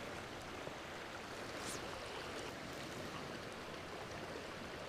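Steady, even rush of a shallow, riffled stream flowing.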